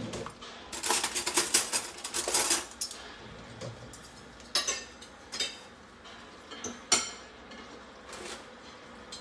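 Cutlery and plates clattering as dishes are handled: a quick run of clinks for about two seconds, then a few separate clinks and knocks spaced a second or so apart.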